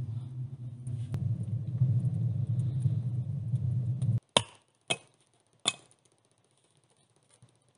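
A low steady rumble that stops abruptly about four seconds in, followed by three sharp axe strikes on wood.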